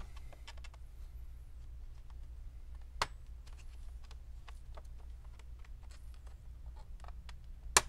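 Plastic pry tool working along the seam of an Asus TUF FX505D laptop's bottom cover: scattered light clicks, with a sharp snap about three seconds in and a louder one near the end as the cover's plastic clips pop loose.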